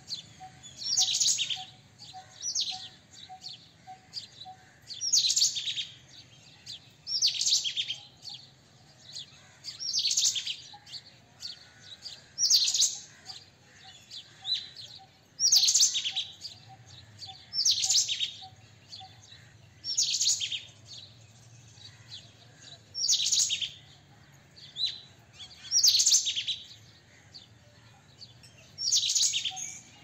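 A bird calls over and over in short loud phrases of rapid high notes, one about every two to three seconds, with softer calls in between.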